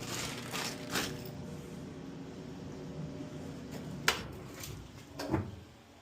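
Maytag electric dryer running with a steady hum after its drive belt replacement, with a few clicks and knocks; the hum stops near the end.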